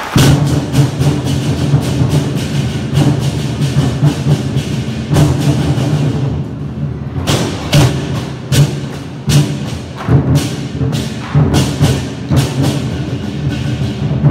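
Chinese war drum ensemble playing a loud, driving rhythm of deep drum beats with sharp crashing strikes cutting through; it starts suddenly and thins out briefly about six seconds in.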